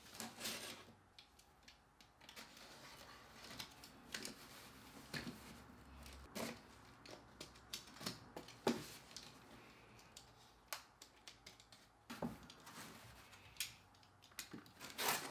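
A utility knife cutting the packing tape on a cardboard shipping box: irregular faint clicks and scrapes, with cardboard rustling as a flap is pulled open near the end.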